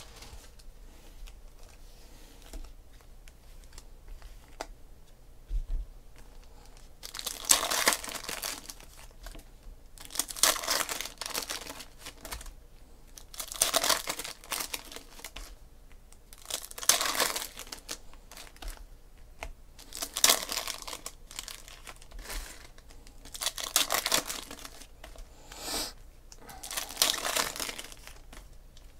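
Foil trading-card pack wrappers crinkling and tearing as they are ripped open and crumpled by hand. The sound comes in bursts about every three seconds after a quieter start.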